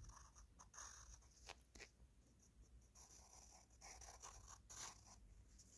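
Pencil writing and drawing lines on paper: faint, irregular scratching strokes.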